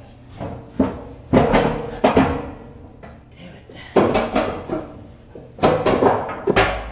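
Metal 16-inch gun powder cans being handled and shifted against one another: a series of clanks and knocks, several of them ringing briefly, in bunches about a second in, near four seconds and around six seconds.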